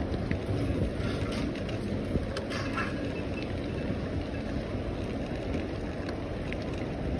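Wind buffeting a phone's microphone on a moving bicycle: a steady low rumble, with a few faint clicks about one to three seconds in.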